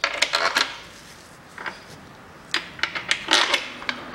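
Clicking and clattering of hard engine parts and hardware being handled and fitted during engine assembly, in a few short irregular bursts.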